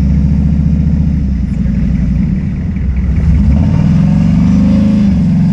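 Vehicle engine running under load, its pitch rising about three and a half seconds in as it revs up, then easing back near the end.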